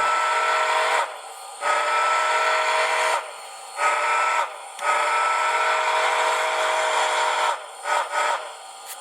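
Digitally sampled steam whistle from a TCS WOW Sound decoder, played through a model locomotive's small speaker: a chord of several steady tones blown long, long, short, long (the grade-crossing signal), then two quick short toots near the end.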